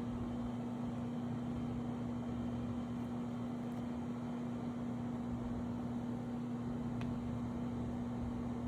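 Steady hum of a running electric appliance or motor: one constant low tone over an even whirring hiss.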